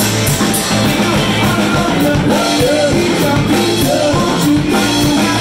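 Live rock band playing loudly: drum kit, electric guitar and a male lead singer.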